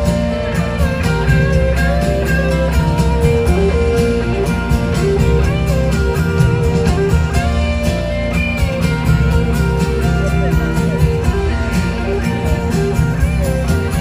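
Live band playing a slow rock song: strummed acoustic guitar, electric guitar and drums, with melodic lines that bend in pitch over the top.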